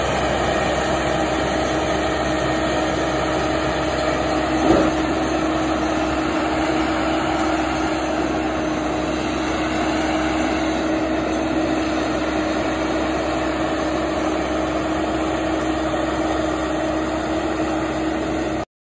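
Seppi RC 50 remote-controlled tracked mulcher's engine running at a steady pitch, with a single short knock about five seconds in.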